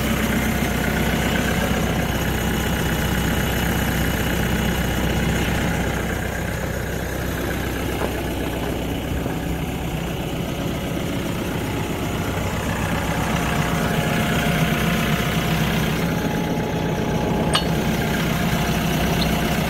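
TYM 654 tractor's turbocharged Deutz four-cylinder diesel engine idling steadily, with a single click near the end.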